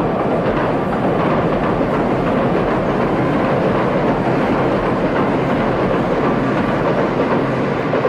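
Train passing on the rails: a loud, steady running noise of wheels and carriages.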